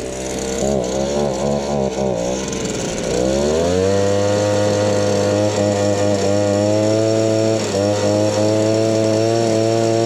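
Mountfield petrol leaf blower-vac's small two-stroke engine, just pull-started. It runs unevenly at low revs with the throttle blipped for about three seconds, then revs up and holds a steady high pitch at full throttle for blowing.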